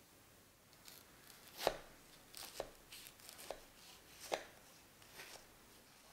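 A ceramic kitchen knife cutting through the crisp, flaky lattice crust of a baked apple pie: a series of short, crisp crackles. The two loudest come about a second and a half in and just past the four-second mark.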